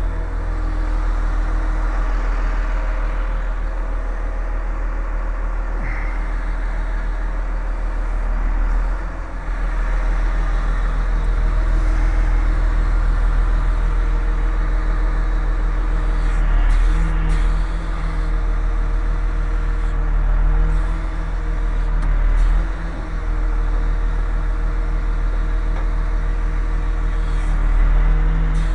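An engine running steadily: a continuous low drone of unchanging pitch, with a few brief dips in level.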